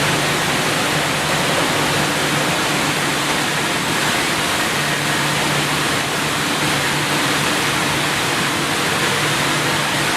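Automatic car wash machine running: a steady rush of spraying water with a low motor hum that fades in and out.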